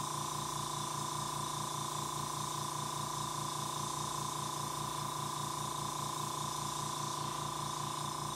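Steady hiss of air from a gravity-feed airbrush with its air held down constantly while it sprays practice lines, over a steady low hum.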